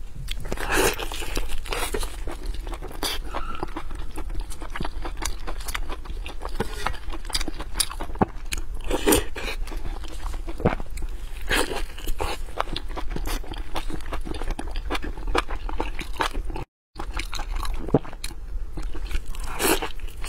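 Close-miked eating: wet chewing and biting of soft, fatty braised pork knuckle skin and meat, full of sharp mouth clicks and smacks. The sound cuts out completely for a moment near the end.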